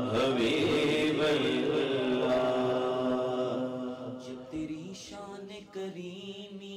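Two male naat reciters singing a slow, drawn-out melodic line through microphones, with long held notes and gliding turns. It grows softer about four seconds in.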